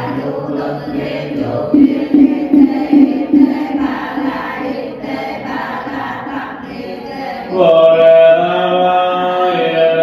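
Vietnamese Buddhist sutra chanting: voices intoning in steady pitched lines. A louder, fuller held note comes in near the end.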